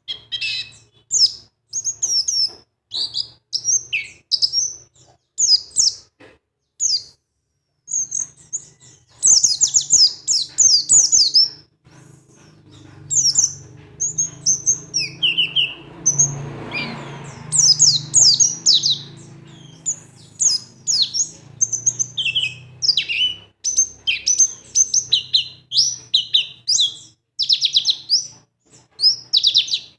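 Birds chirping: many quick, high-pitched chirps and short twitters in fast runs with brief pauses. A faint low hum sits under them through the middle part.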